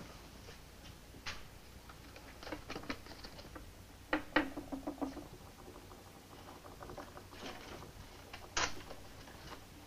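Quiet room with faint scattered clicks and taps of small objects handled at a table. A louder pair of clicks comes about four seconds in, followed by a brief low tone, and a sharper click comes near the end.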